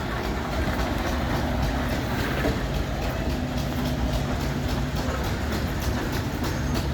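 An engine running steadily: a constant low hum with faint, rapid, even ticking over it.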